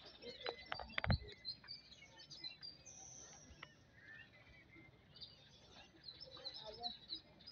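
Riverside outdoor ambience with small birds chirping on and off. A few sharp knocks come in the first second or so, the loudest about one second in.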